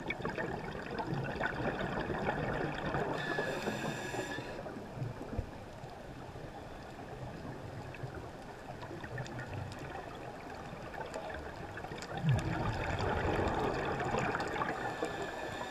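Scuba diver's regulator breathing underwater: a steady muffled rush and bubbling of exhaled air, with a brief whistling tone about three seconds in and a louder surge of bubbles about twelve seconds in.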